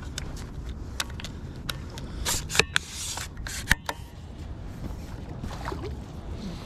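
Irregular clicks and scrapes of fishing gear and a landing net being handled, with a louder rush of noise a little past two seconds in that lasts about a second, over a steady low rumble.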